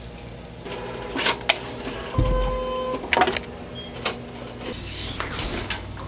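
Kodak photo kiosk printer running as it prints a sheet: a steady mechanical hum broken by several sharp clicks, with a held tone about two seconds in.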